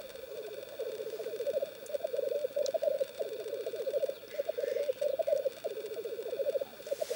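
Male black grouse rookooing: a continuous bubbling, dove-like warble of rapid pulsed notes, broken by a few short pauses. This is the lek display song that males use to court females.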